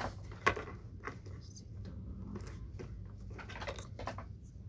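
Plastic packaging crinkling and rustling in short crackly bursts as it is pulled off a new fan heater.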